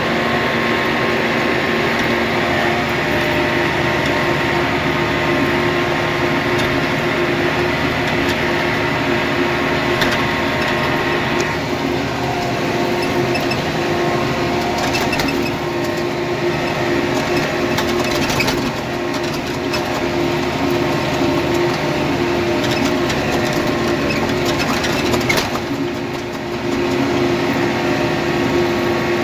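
Case 125 tractor's diesel engine running steadily at about 1,500 rpm under load, pulling a 44-disc harrow, heard from inside the cab. A few faint clicks and rattles come through now and then.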